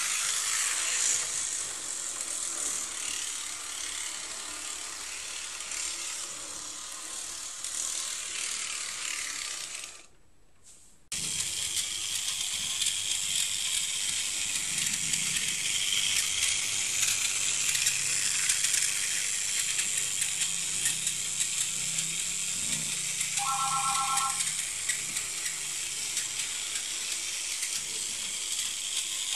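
Model railway trains running: a steady metallic rattle and whir of small electric locomotives and their wheels on the track. It cuts out for about a second some ten seconds in. A short, chord-like tone sounds near the end.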